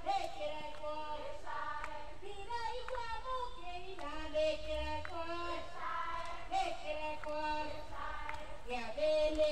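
High female voices singing a melody, with held notes that step up and down.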